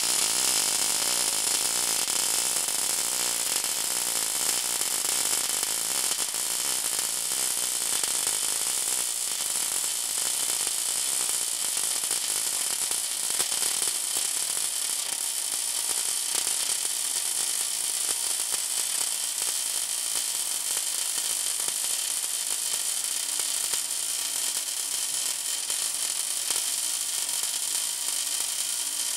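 Steady hiss and fine crackle of a coldArc short-circuit MIG welding arc, with a faint whir from the automatic welding bug's drive as it travels around the pipe.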